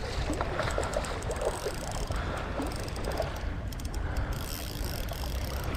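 Wind rumbling on the microphone over shallow seawater sloshing and splashing at the shoreline, with faint light clicks.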